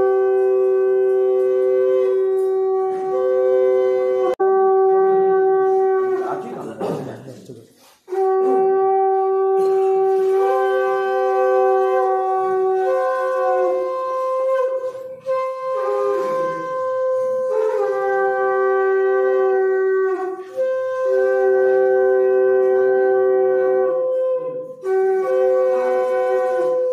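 Conch shells (shankha) blown in long held notes, two tones sounding together, with short breaks for breath every few seconds and a longer break about seven seconds in.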